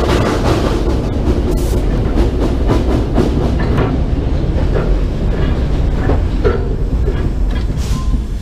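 Narrow-gauge steam locomotive under way, heard close from on top of its boiler: a steady heavy rumble with the chuff of the exhaust and the clatter of wheels on rail.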